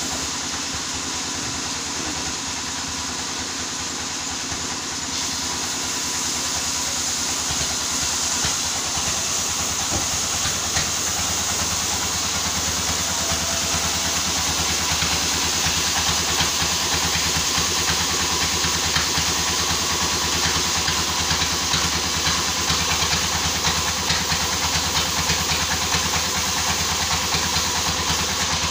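Sawmill machinery running steadily: an engine rumble under a broad hiss, growing a little louder from about six seconds in.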